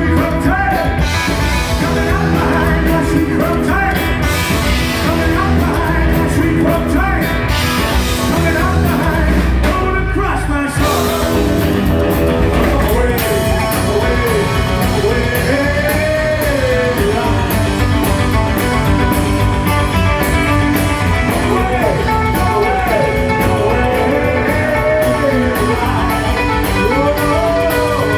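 Rockabilly band playing live: electric guitar, drums and a singing voice. The band drops out briefly about ten seconds in, then comes back in on a steady drum beat.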